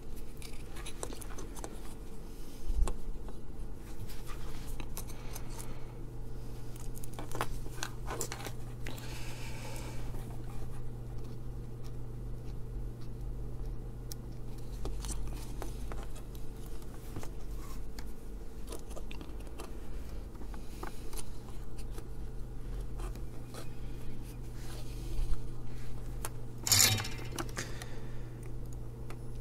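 Workbench handling noise: scattered clicks, scrapes and snips of small parts and wire as a battery box is fitted to a small FM radio kit board, with one louder clatter near the end. A steady low hum runs underneath.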